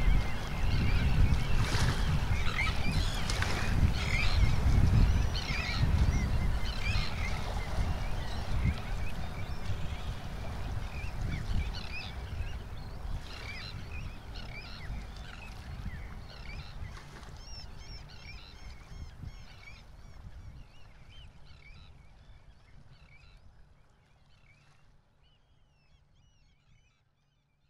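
Gulls calling again and again over a low rumbling seashore background. The whole sound fades out gradually toward the end.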